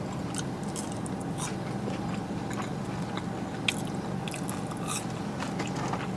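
Close-up chewing and biting of a French fry, with soft crunchy clicks scattered through, over a steady low room hum.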